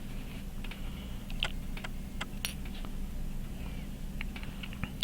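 Small, irregular metallic clicks and taps of hand tools working on pocket-watch parts during disassembly, over a steady low hum.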